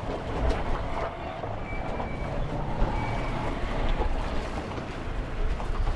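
Steady outdoor background noise with a low rumble, and a few light clicks.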